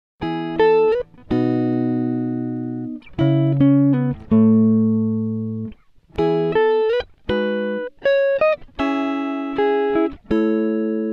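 Background music: a guitar playing a slow melody of held notes, with short slides between some of them.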